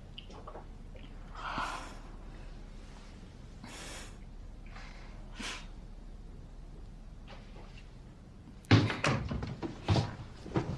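A door slams shut about nine seconds in, followed by a few quick knocks and rattles; before it only faint rustling.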